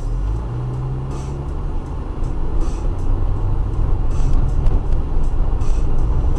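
Steady low rumble of a car driving, with road and engine noise heard from inside the cabin, growing louder. A faint hiss recurs about every second and a half.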